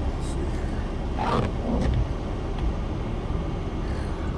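Vehicle engine idling, a steady low rumble, with a brief rustling noise about a second in.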